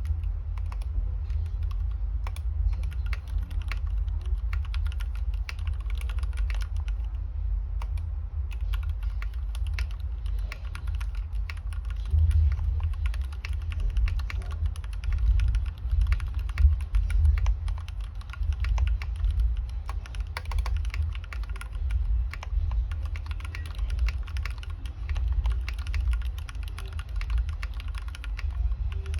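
Continuous typing on a GK61XS 61-key mechanical keyboard with lubed Gateron Yellow linear switches, Cherry-profile keycaps, an aluminium plate and an aluminium case: many keystrokes a second, irregular, over a steady low rumble.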